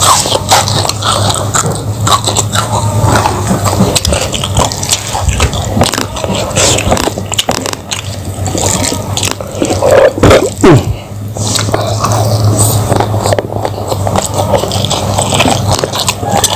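Close-miked chewing of fried fish, rice and raw vegetables eaten by hand: a dense run of small crunches and mouth clicks, louder for a moment about ten seconds in.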